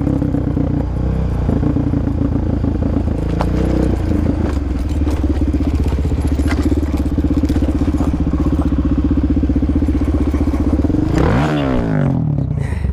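Motorcycle engine running at a steady pitch under way, with occasional light clicks and rattles. About eleven seconds in, the engine note drops sharply and then climbs again.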